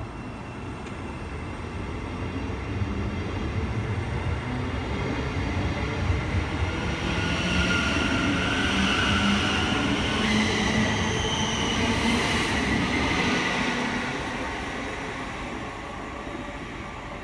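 Thameslink Class 700 electric multiple unit pulling out of the platform, its traction motors whining in shifting tones as it gathers speed over a rumble of wheels. The sound is loudest about halfway through, then fades as the train draws away.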